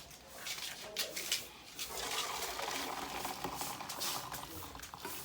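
A few clinks of a pot, then cooked herbal liquid poured through a strainer, splashing and trickling steadily for a couple of seconds before tapering off near the end.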